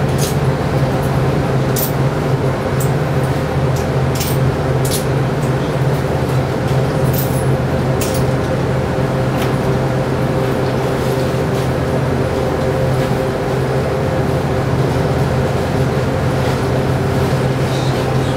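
Inside a city bus's cabin, the engine is running steadily with a strong low hum and a fainter steady higher tone. Scattered sharp ticks and rattles come through, mostly in the first half and again near the end.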